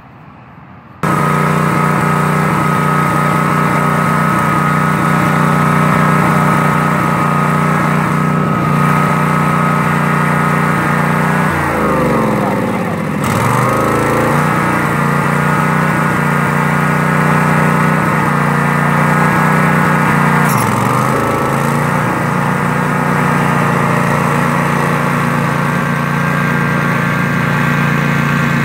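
Cub Cadet riding lawn mower's engine running steadily with a high whine over it, coming in abruptly about a second in. Its pitch sags and recovers once about twelve seconds in and again, more briefly, around twenty seconds in.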